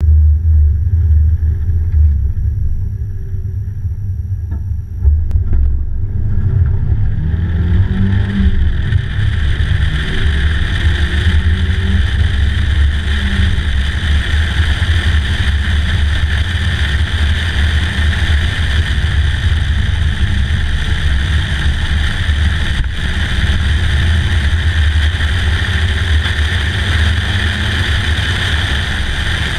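Stock 2003 Mazda Miata's 1.8-litre four-cylinder engine pulling away and climbing in pitch several times as it runs up through the gears, with a thump about five seconds in. Heavy wind rush over the open cockpit builds with the speed and then stays steady under the engine.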